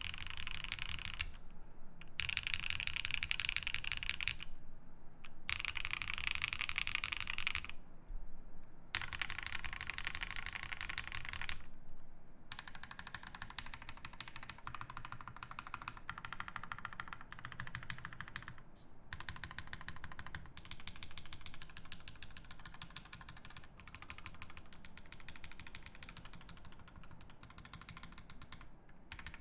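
Fast typing on a Matrix Noah mechanical keyboard with lubed EV-02 switches, UHMWPE plate and GMK Honey keycaps: dense runs of keystrokes. For the first dozen seconds the typing comes in bursts with short pauses between them, then it runs on more steadily and a little softer.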